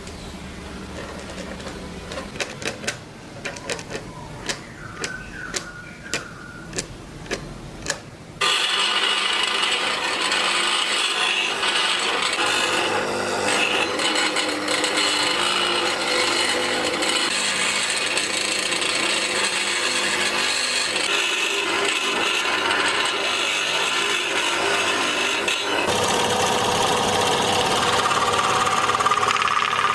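About ten light taps on wood, coming faster and then evenly spaced, then a small power tool starts abruptly and runs steadily, cutting or shaping wood, its sound shifting slightly near the end.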